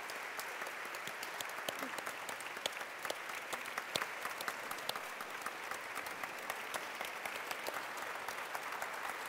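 A large audience applauding steadily, a dense wash of many hands clapping at once.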